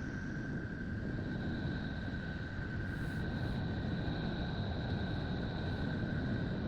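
A planet's 'space sound': spacecraft radio data turned into audio, heard as a steady low rumbling hiss with a thin high tone held throughout and a second, higher tone that enters about a second in.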